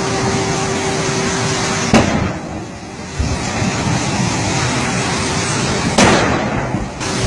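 Two loud blasts about four seconds apart from gas cylinders exploding in a burning vehicle. The second blast throws up a large fireball.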